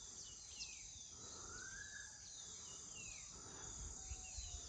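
Rural outdoor ambience: a steady high-pitched drone of insects, with repeated short falling bird chirps and one longer bird whistle that rises and falls about a second and a half in, over a low rumble of wind.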